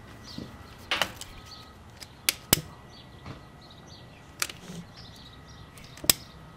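A handful of sharp clicks, two of them in quick succession near the middle, from a long-nosed butane utility lighter being sparked and handled to light a fire starter.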